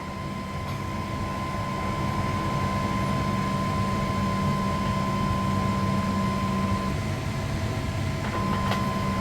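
Monoprice Maker Select Plus 3D printer running a print: a steady high motor whine over a lower hum, which grows slightly louder over the first couple of seconds as the print speed picks back up to 130%. The whine breaks off for about a second near seven seconds in, then resumes.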